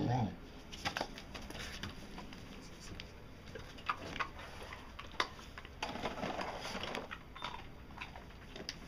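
A bull terrier moving about on carpet: scattered light clicks and rustling. Her growly, talk-like vocalisation ends in the first moment, and a short stretch of rustling comes about six seconds in.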